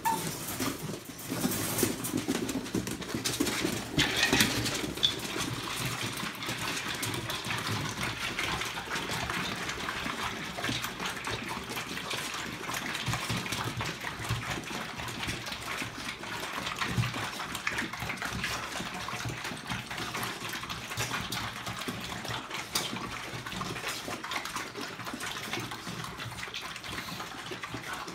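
Staffordshire bull terrier puppies eating together from a stainless steel bowl: continuous wet slurping and chewing with small clicks of food and teeth on the metal.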